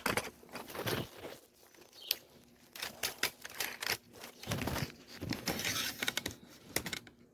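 Irregular clicks, clunks and scraping of hand work in the engine bay, rocking the engine so the motor mount bracket seats onto its stud.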